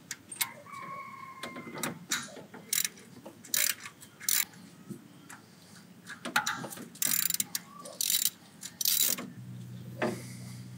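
Hand socket ratchet clicking in short bursts of strokes as bolts on a timing belt auto tensioner are loosened, with a brief high squeak about half a second in. A steady low hum comes in near the end.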